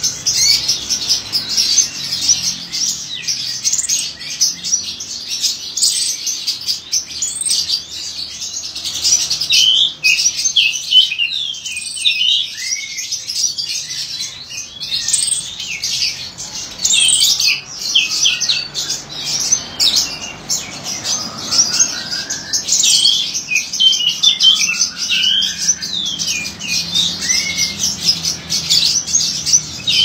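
A caged songbird singing nonstop in a fast, busy stream of high chirps and twittering notes, with short gliding whistles mixed in.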